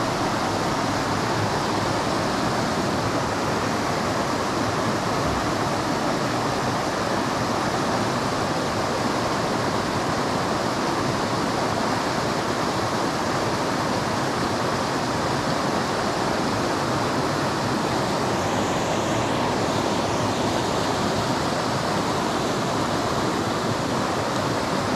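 Steady rush of a small cascade of whitewater pouring into a stream pool.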